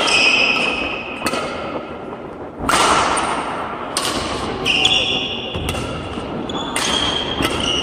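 Badminton rally: rackets striking the shuttlecock about six times, sharp smacks roughly a second apart that echo in the hall, with sneakers squeaking on the court floor between shots.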